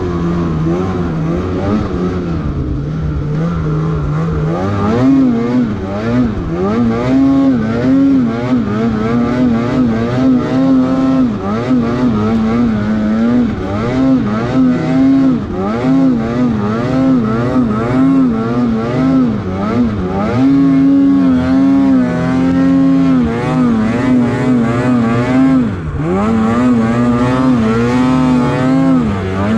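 Snowmobile being ridden, its engine running hard. The pitch steps up about four seconds in, then the engine speed rises and falls over and over.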